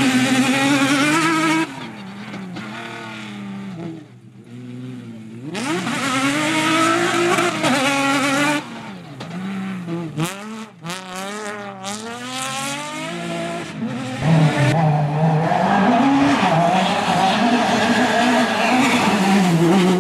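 Off-road rally buggy engines revving hard on a dirt stage, the pitch climbing and dropping with each gear change and lift, with a series of quick upshifts about ten seconds in. The engine sound fades briefly about four seconds in, then returns loud as another car passes.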